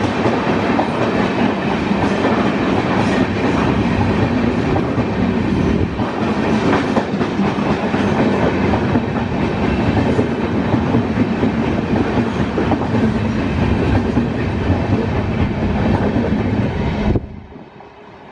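Express train's passenger coaches running past close by, a loud steady rumble with the wheels clattering over the rail joints. The sound drops off suddenly near the end.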